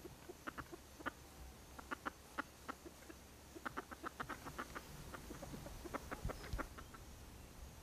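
Chickens clucking softly in short, separate calls, with quick runs of clucks around the middle and again near the end.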